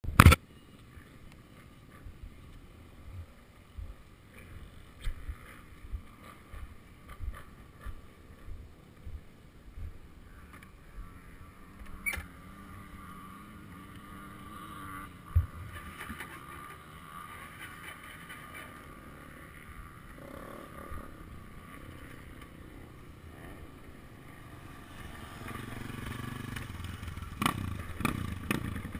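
Suzuki DR-Z400SM's single-cylinder four-stroke engine running faintly at low speed, with scattered low thumps through the first half. A sharp click right at the start; the engine and road noise grow louder over the last few seconds as the bike speeds up.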